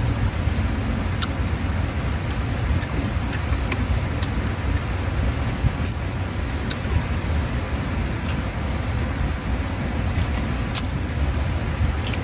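Steady low rumbling outdoor noise throughout, with about half a dozen faint sharp clicks and smacks from eating by hand scattered through it.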